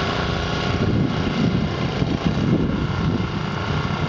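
A small engine running steadily, with an uneven low rumble over it through the middle.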